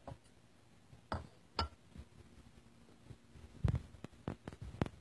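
A few scattered light knocks and clinks, about seven in all, with the loudest near the end.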